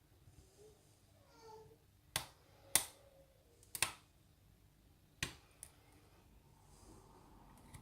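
Lock-picking tools working a pin-tumbler challenge lock: four sharp clicks spread over about three seconds, with a fainter one just after.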